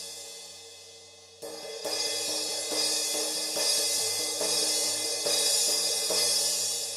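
Paiste Sound Formula Full Crash 15-inch cymbal being crashed over and over. An earlier crash rings down, then from about a second and a half in, repeated strikes keep its bright wash going, and near the end it is left to ring out and fade.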